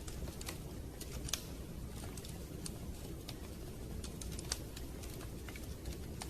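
Wood fire crackling with irregular sharp pops and snaps, a few each second and one or two louder, over a low steady rumble.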